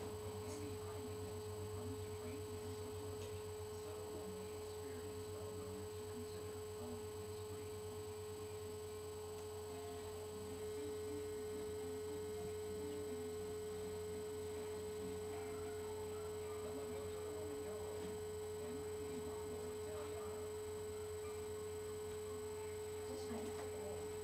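Steady electrical hum with a constant mid-pitched whine running under faint room tone, with a few faint knocks near the end.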